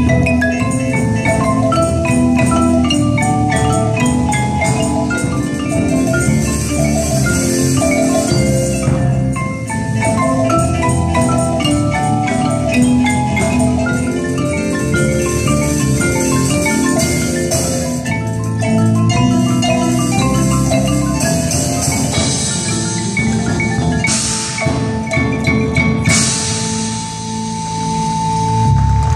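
Indoor percussion front ensemble playing a fast, busy passage on marimbas and vibraphones, note on note. Near the end, washes of cymbal hiss come in and a single high note is held.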